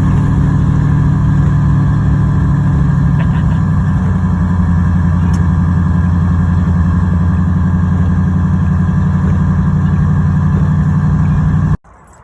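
Classic Ford Mustang's engine running at a steady pitch while driving, with road and wind noise underneath; it cuts off abruptly near the end.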